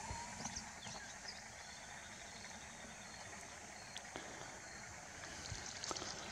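Faint outdoor ambience: a low, even rumble with scattered short, high chirps from small animals and a few soft clicks.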